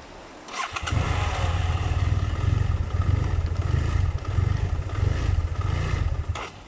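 BMW F700GS parallel-twin engine starts about half a second in and runs at an unsteady idle, then cuts out suddenly about six seconds in: the stalling caused by a faulty throttle position sensor.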